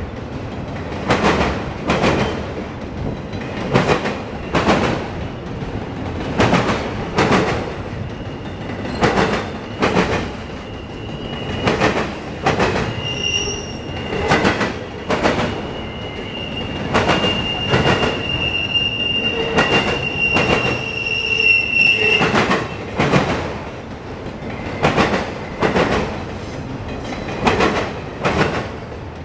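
Freight train of autorack cars rolling past, the wheels clacking over rail joints in steady, evenly spaced pairs over a rumble. A high steady wheel squeal joins about a third of the way through and stops about two-thirds through.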